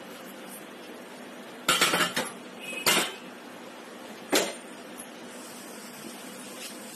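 Metal cookware and utensils clanking on a stovetop as a pan is set up for shallow frying: a cluster of clatters about two seconds in, another clank near three seconds, and a single clank a little past four seconds.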